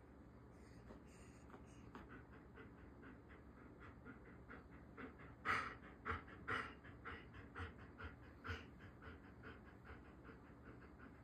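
A German shepherd–collie mix dog panting, quick breaths at about three a second that grow louder midway and then ease off.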